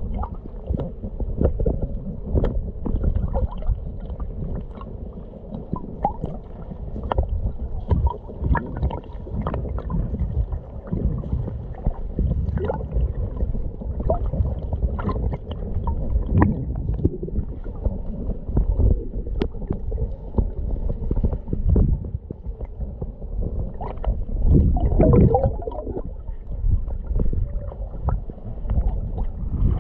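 Muffled underwater noise picked up by a submerged camera: a low rumble of moving water with frequent small clicks and pops, and a louder bubbling surge about 25 seconds in.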